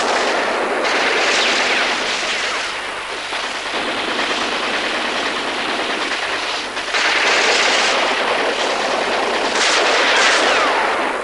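Battle sound: dense, continuous gunfire and shell explosions, thin-sounding with no deep bass, swelling louder about a second in, again about seven seconds in and near the end.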